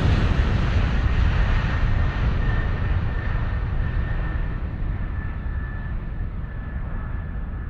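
Jet aircraft noise: a steady rumble with a faint high whine, slowly fading away.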